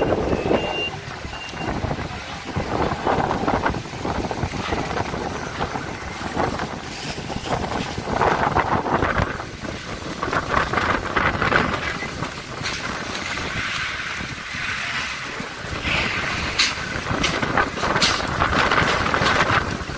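Dust-storm wind gusting hard across the microphone, a heavy rushing noise that swells and falls off every second or two. A car horn beeps a few times near the start.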